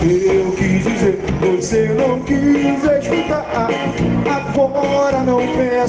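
Song played on acoustic guitar, with a melody line that moves up and down over the chords.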